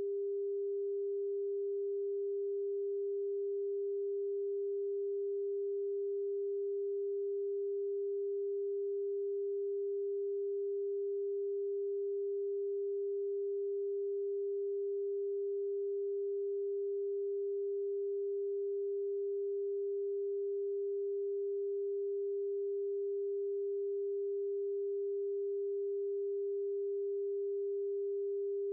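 A single steady, unwavering pure tone of middle pitch, an electronically generated sine-wave test tone that does not change in pitch or loudness.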